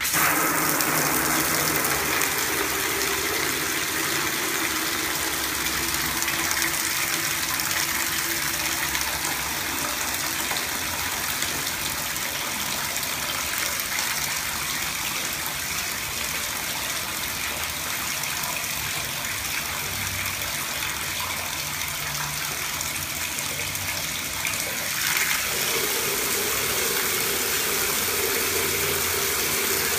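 Shower head spraying water, coming on abruptly and running steadily. About twenty seconds in the spray gets a little louder and a steady hum joins it as the water pressure kicks in late.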